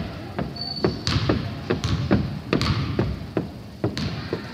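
Basketball bouncing on a hardwood gym floor: sharp thumps at an irregular pace, several a second, over the hum of the gym, with a brief high squeak about half a second in.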